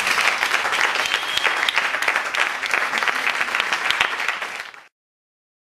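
Audience applauding after a poetry reading. The clapping is dense and continuous, then fades out and cuts off to silence about five seconds in.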